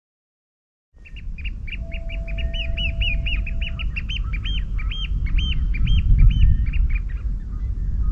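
Birds chirping in quick repeated calls, which thin out near the end, over a loud low rumble. A single steady tone sounds for about two seconds near the start.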